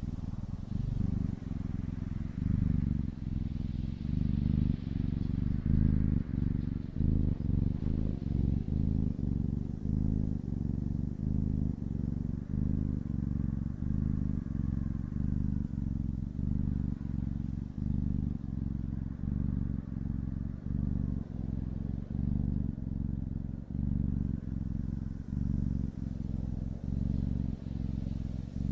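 Domestic cat purring close to the microphone: a low, buzzing rumble that swells and dips about once a second with its breaths in and out.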